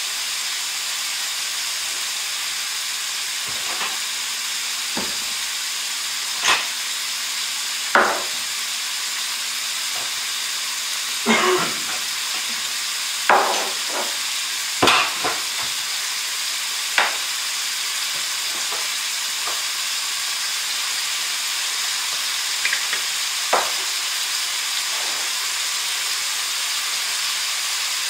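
Diced bacon frying in a cast-iron skillet: a steady sizzle, with a sharp pop of spitting fat every few seconds.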